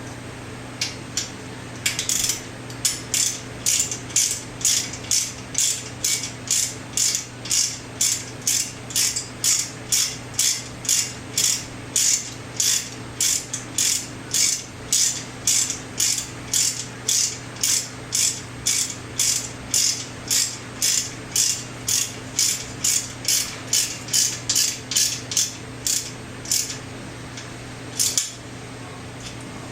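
Socket ratchet wrench being worked back and forth to run in a bolt, its pawl rasping on each back-swing at about two strokes a second. The strokes start about two seconds in, stop near the end, and there is one last stroke after a short pause.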